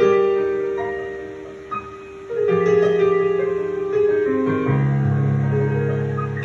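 Keyboard accompaniment to a gospel song playing held chords between sung lines. The chords change about every two and a half seconds, and a low bass note comes in about halfway through.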